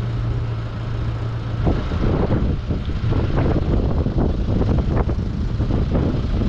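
Deutz-Fahr Agrotron tractor's diesel engine running as it moves off towing a slurry pump, with knocking and rattling joining in about a second and a half in.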